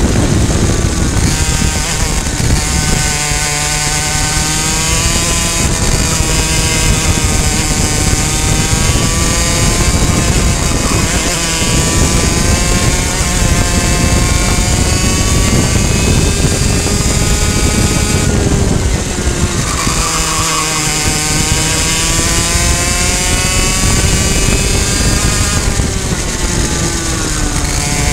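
Two-stroke racing kart engine at high revs, heard onboard over wind rush. Its pitch drops sharply as the driver lifts for a corner, about 3, 11, 19 and 26 seconds in, and climbs back each time.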